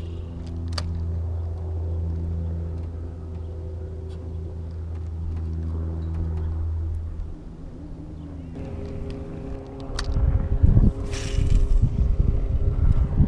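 Electric trolling motor humming steadily, its tone changing about seven seconds in. In the last few seconds wind buffets the microphone, with a few light clicks.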